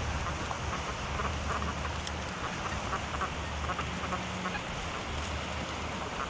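XP Deus metal detector giving low, grunting iron tones as it sweeps over junk, over a steady hiss.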